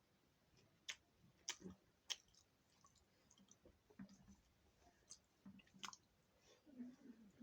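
Faint, scattered clicks and light taps, four of them sharper than the rest, about one, one and a half, two and six seconds in.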